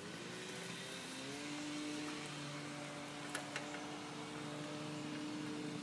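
Faint engine hum that rises in pitch over the first second and then holds steady, with a couple of light clicks a little over three seconds in.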